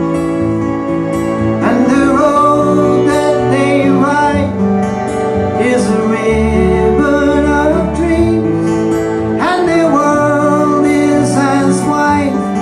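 Acoustic folk song with guitar, and a wavering lead melody line entering about two seconds in.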